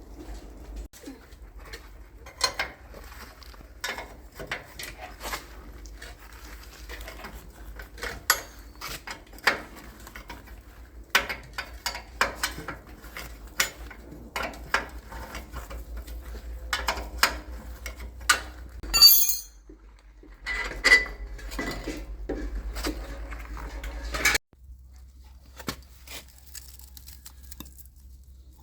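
Metal tools and parts clinking and clattering, with many separate sharp knocks, over a steady low hum.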